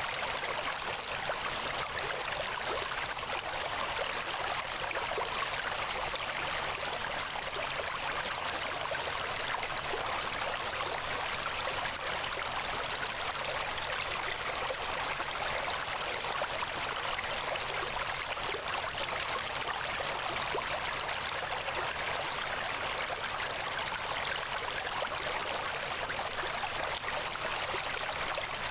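Steady, unbroken rushing noise like a running stream, even in level, with its weight in the upper range and little low end: the masking sound of a subliminal audio track.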